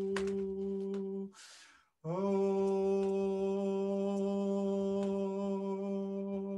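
A man humming one low note held steady, breaking off about a second and a half in for a quick in-breath, then sliding up into the same note again and holding it.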